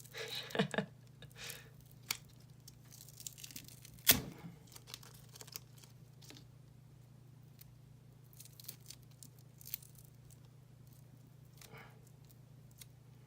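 Duct tape being peeled and torn away with crinkling and rustling, most busy in the first couple of seconds, with a single sharp knock about four seconds in. A steady low hum runs underneath.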